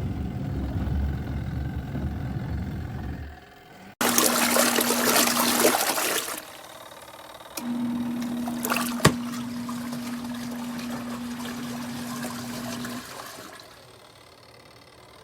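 Water running and trickling in the small portable washer's tub, with a steady low hum that stops and starts, and a single sharp click about nine seconds in. The tub is cracked down the middle with a broken seam.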